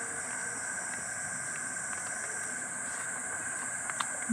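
A steady, high-pitched chorus of night insects chirring without a break, with a few faint clicks near the end.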